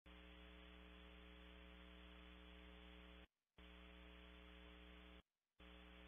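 Faint steady electrical hum with hiss on a webcam's audio feed. It drops out briefly about three seconds in and again about five seconds in.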